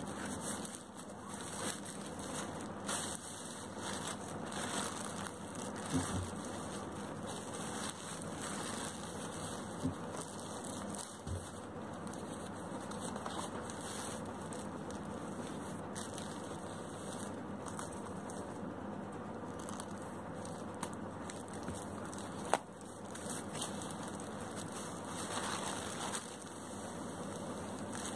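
Plastic packaging being handled and pulled off a long parcel: a continuous crackling rustle with a few sharp clicks, the loudest about two-thirds of the way through.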